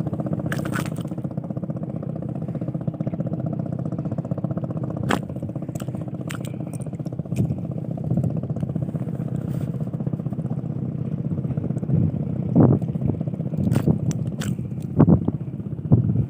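An engine running at a steady, even hum, with scattered clicks and knocks, several of them louder near the end.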